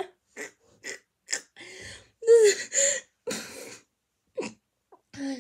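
A girl's stifled laughter: a string of short, breathy bursts with a couple of louder voiced ones about two to three seconds in.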